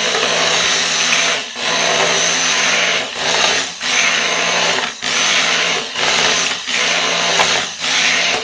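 Electric stick blender running in the lye-and-oil mixture of a hot-process soap batch, its motor whirring with a steady hum and easing off briefly every second or so as it is pulsed, then stopping at the end.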